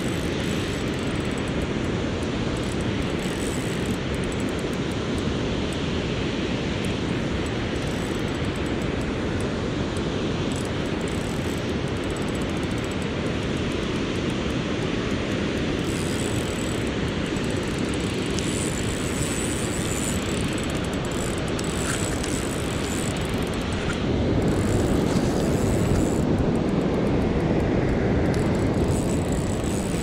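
Steady rushing noise of water pouring over a dam spillway, growing a little louder for a few seconds near the end.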